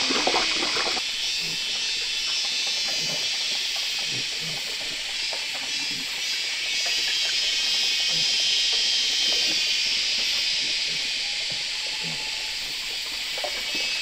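A steady high-pitched hiss typical of a chorus of insects such as cicadas, with a few faint short low sounds scattered through it. Louder, lower sounds fill the first second.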